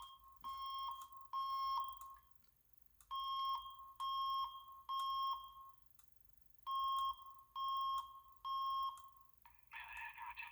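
Fire alarm speaker strobe sounding the temporal-three evacuation tone: three steady half-second beeps, a pause, then the three beeps again, repeated three times. Near the end a recorded voice evacuation message starts through the same speaker.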